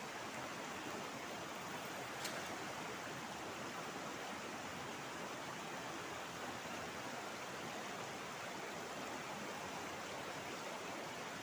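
Steady rush of a small rocky river's rapids, water churning over and around boulders.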